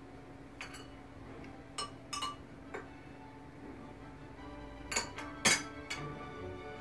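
A metal teaspoon clinking against a china teacup about seven times as tea is stirred, the loudest two clinks near the end, some ringing briefly. Faint background music runs underneath.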